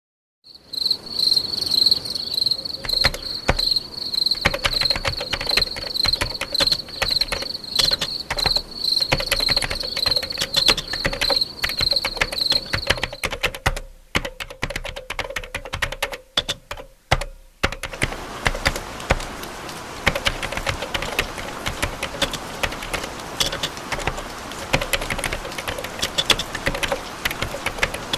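A steady high-pitched insect-like trill over dense, rapid clicking for roughly the first half. After a few broken seconds the trill is gone and the clicking carries on as a thicker, hissier patter.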